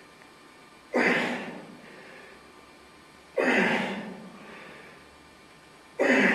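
A man's forceful, loud exhalations, three of them about two and a half seconds apart, each pushed out with the effort of one repetition of a heavy back exercise. A fainter breath follows each one.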